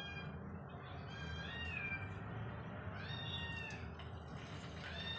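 A cat meowing three times, each call rising and then falling, over the steady sizzle of marinated fish frying in shallow oil on a large tawa.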